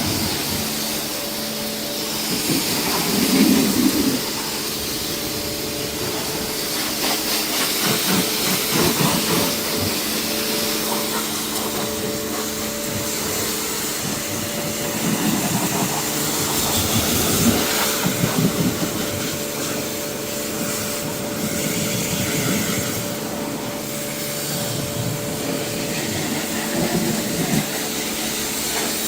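Pressure washer running: a steady motor hum under the hiss of the water jet spraying onto the car, swelling and easing as the spray moves.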